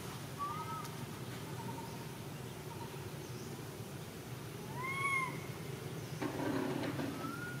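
Long-tailed macaques giving short coo calls, three in all, each rising and falling in pitch; the loudest comes about five seconds in.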